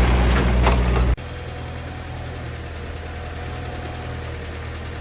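Loud low machinery engine noise with clicks cuts off abruptly about a second in. An engine then idles steadily with an even low pulse.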